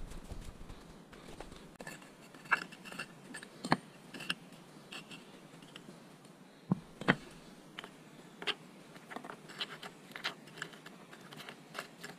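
A brick and small stones being set down and shifted on a concrete step: a series of light knocks and gritty scrapes, with two sharper knocks close together a little past halfway.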